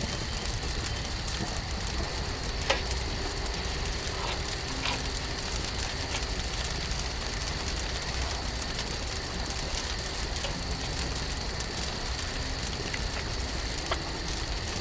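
Campfire cooking fire giving a steady sizzling hiss, with a few sharp crackles.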